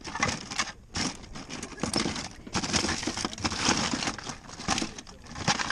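Plastic toys and game controllers clattering and knocking together as a hand rummages through a plastic tub of them, in quick irregular knocks.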